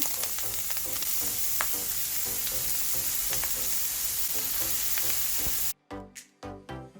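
Food frying in hot oil in a pan, a steady sizzle with occasional clicks of a utensil. About six seconds in it cuts off suddenly and music with drums comes in.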